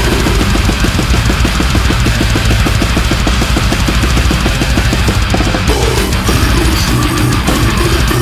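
Death metal track with fast, even drumming dominating; the pattern changes about six seconds in.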